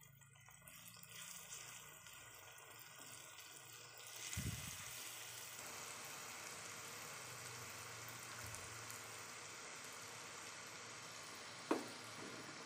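Jalebi batter frying in hot oil in a flat pan: a steady sizzle that starts faint and grows much louder about four seconds in, with a brief low thump at that point. A single sharp tap comes near the end.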